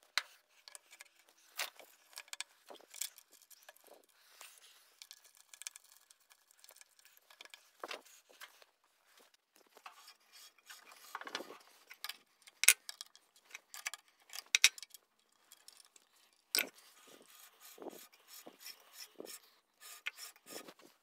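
Small bandsaw being worked by hand while its blade tracking is set: the upper wheel turned with the blade on, giving scattered light rubbing and metallic clicks, with a few sharp knocks about two-thirds of the way through.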